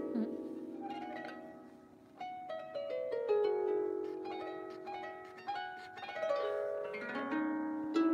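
Out-of-tune harp being plucked in a slow, free melody of single ringing notes that die away. The playing sinks low about two seconds in, picks up again, and climbs in a short rising run near the end.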